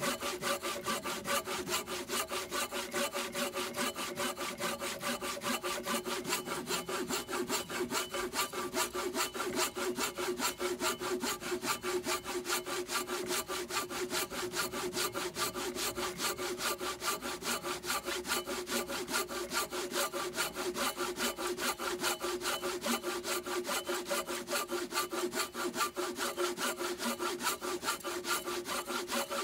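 Silky BigBoy 360 folding hand saw with coarse teeth cutting into a weathered wooden log, rasping back and forth in fast, even strokes without a break.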